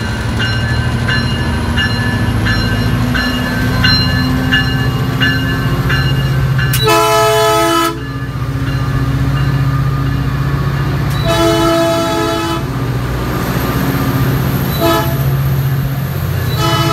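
MP36PH-3C diesel locomotive pulling a commuter train out of the station, its engine running steadily as it passes close by. A bell rings about twice a second for the first six seconds. The locomotive's horn then sounds the grade-crossing pattern: two long blasts, a short one, and a fourth long blast starting near the end.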